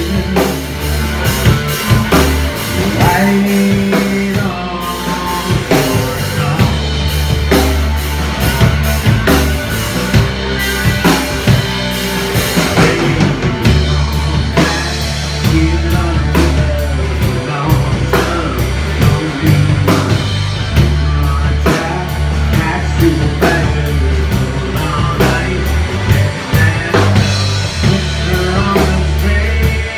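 Live rock band playing a jam: drum kit keeping a steady beat under electric bass and electric guitar.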